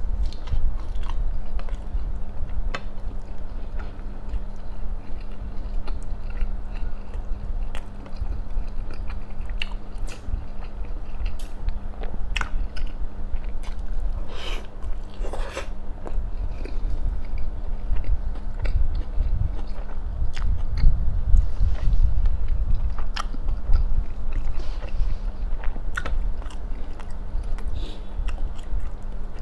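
Close-miked chewing and biting of roti john, a filled bread sandwich with chicken, sausage and cheese, eaten by hand: wet mouth sounds with small clicks and soft crunches.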